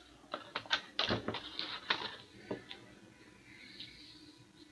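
Quick run of small clicks and knocks from a clear plastic card holder being handled and fitted around a trading card, busiest in the first two seconds, then only faint rustling.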